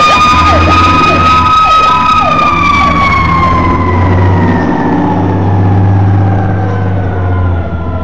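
Fire truck sirens sounding as the truck pulls away: one steady high siren tone that slowly falls in pitch after about two seconds, and a second siren yelping rapidly over it for the first three seconds. The truck's diesel engine rumbles steadily underneath.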